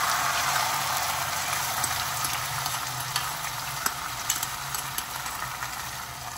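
Beaten duck-egg and fish-roe mixture sizzling as it is poured into a hot oiled non-stick pan: a steady frying hiss that slowly fades. A few light clicks of a metal spoon come through the hiss.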